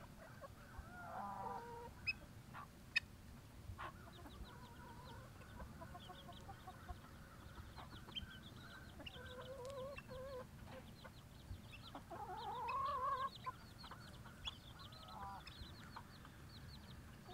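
A small flock of chickens clucking and calling softly, several drawn-out calls, the loudest a rising call about twelve seconds in. Faint high chirping runs underneath.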